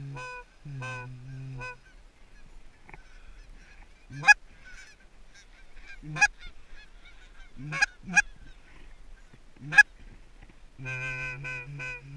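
Canada goose calls blown from the blind to a flock coming in: long low drawn-out notes at the start and again near the end, with five very loud sharp clucks in between, about two seconds apart, two of them close together. Fainter goose honking can be heard between the clucks.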